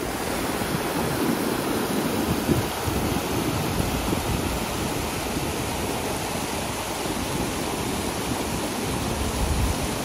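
Steady rushing of a mountain waterfall, with wind buffeting the microphone in an irregular low rumble.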